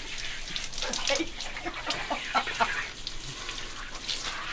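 Water running from a tap and splashing, with a few short squeaky, pitched sounds about a second to two and a half seconds in.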